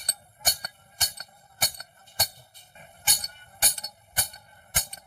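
A hammer striking steel, a steady run of blows about two a second, each with a metallic ring.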